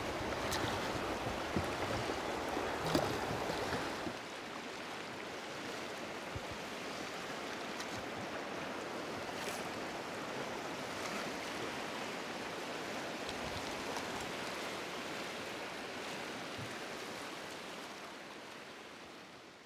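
River water rushing over rapids in a steady hiss, with a few light knocks in the first few seconds. The sound steps down in level about four seconds in and fades out at the end.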